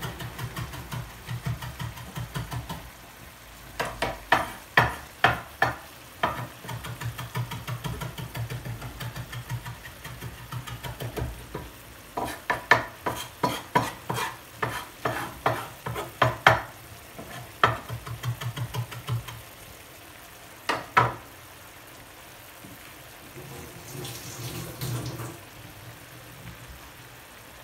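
Cod fillets simmering in a watery tomato and olive-oil broth in a frying pan: steady bubbling with sharp pops and spits, in two runs of a few pops a second and one loud pop near the end.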